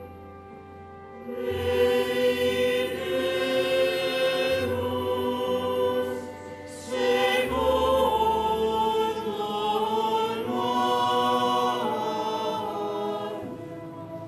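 Mixed choir singing sacred polyphony in sustained chords, echoing in a stone cathedral. The voices swell in about a second and a half in, break off briefly about halfway, and the last chord fades near the end.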